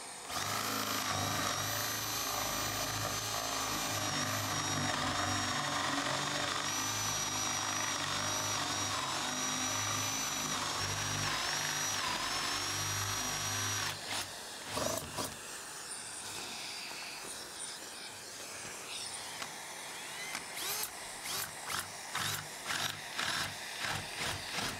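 Cordless drill with a Forstner bit boring holes through a plywood shelf. The motor whines steadily for about the first half, then comes in shorter, broken bursts.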